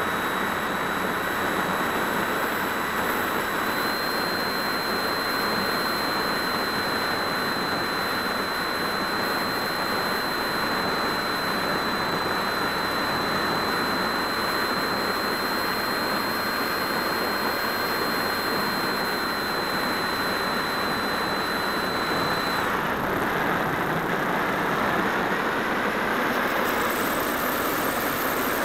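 Steady rush of air over the wing-mounted camera of a Phoenix 1600 electric RC glider in flight, with a thin high whine from its electric motor that cuts off abruptly about three-quarters of the way through, as the glider goes over to gliding.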